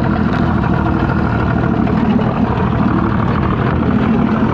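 Boat's outboard motor idling steadily in neutral.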